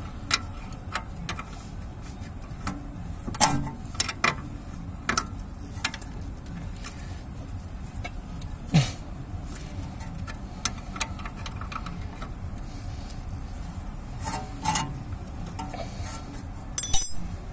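Hand tools clinking and knocking against the steel front suspension parts during ball joint work on a VAZ-2107: scattered short metallic clicks and knocks, the loudest about three and a half seconds in and again near the end.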